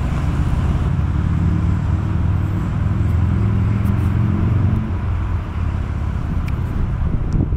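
A steady low engine hum, which eases off somewhat about five seconds in.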